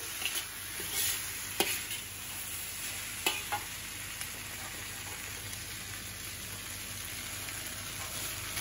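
Noodles and vegetables sizzling in a wok as they are stir-fried, a steady hiss broken by a few sharp clicks of the steel slotted spatula against the pan.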